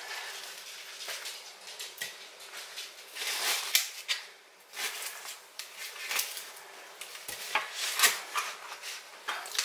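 Knife cutting partly frozen chicken and the pieces dropping into a ceramic slow-cooker crock: irregular light clicks, scrapes and knocks, a few of them louder.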